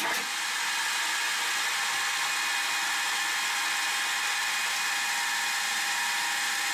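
Metal lathe running at about 800 rpm and taking a turning pass with a carbide insert at a faster feed rate: a steady, even high-pitched whirr and hiss with a few steady tones in it.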